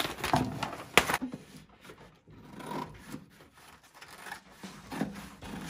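Large plastic décor transfer sheet crackling and rustling as it is lifted and handled, with a sharp snap about a second in, then quieter intermittent handling sounds.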